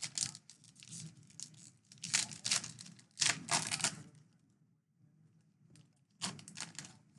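A Donruss baseball card pack wrapper being torn open and crinkled, in several short rustling bursts, with a pause of about two seconds before the last one.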